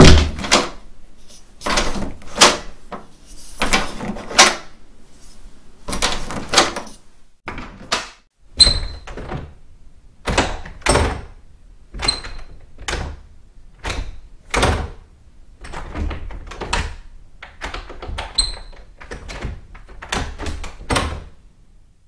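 Doorknobs being grabbed and turned: a string of separate metal clicks and knocks from the knob and latch, one every second or two, a few with a brief high ring.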